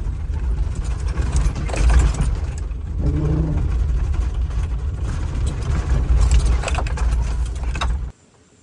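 Camper van driving over a rough dirt trail: steady low engine and road rumble with frequent rattles and knocks from the van's body and load. The sound cuts off suddenly about eight seconds in.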